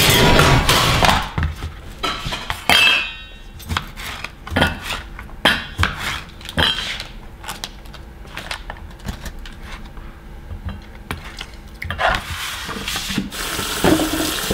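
Kitchen work sounds: a metal baking tray sliding into the oven at the start, then scattered sharp knife clicks on a plastic cutting board while slicing mozzarella, and a kitchen tap running near the end as the board is rinsed.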